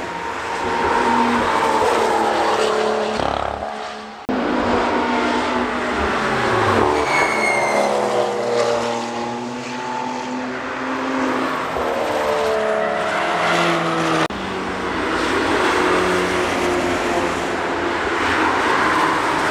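Cars on a race track driving past one after another, engines revving hard and then dropping in pitch as each goes by. About halfway through there is a brief high squeal.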